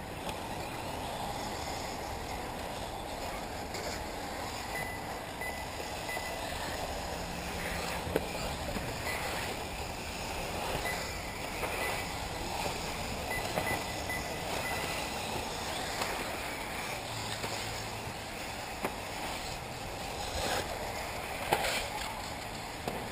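1/8-scale electric RC off-road buggies running on the track: a steady whir of motors and tyres with a faint high whine that comes and goes, and a few short knocks.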